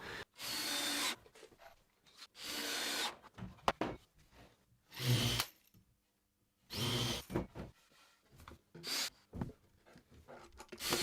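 Power drill running in short bursts of about a second, four times with brief knocks between, driving screws into plywood.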